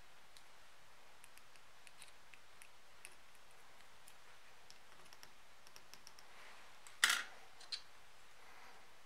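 Faint small clicks and taps of fingers handling a small screw-cap keyring capsule and its cap, with one louder sharp clack about seven seconds in and a smaller one just after.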